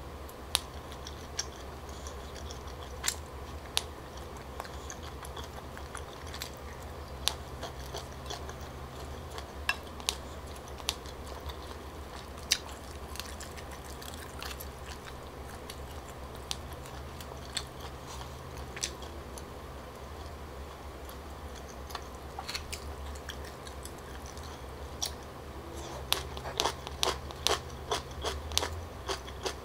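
Close-up mouth sounds of someone chewing chewy Korean rice cakes (tteokbokki), with scattered small wet clicks and smacks over a faint steady low hum. Near the end comes a quick run of clicks as a wooden fork and spoon work in the bowl.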